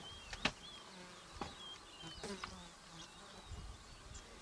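A flying insect buzzing faintly close by, with repeated short high chirps and a few sharp clicks.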